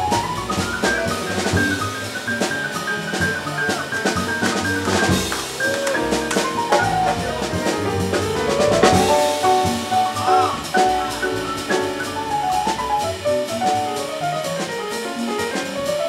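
Jazz piano trio playing: grand piano lines that step down and back up, upright double bass, and a Gretsch drum kit busy with cymbals and drums.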